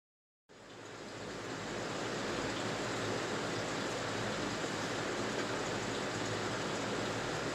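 A steady rushing noise fades in from silence about half a second in and holds level from about two seconds.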